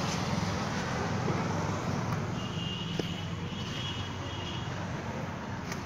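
John Deere tractor's diesel engine idling steadily, with a thin high whistle-like tone for about two seconds midway.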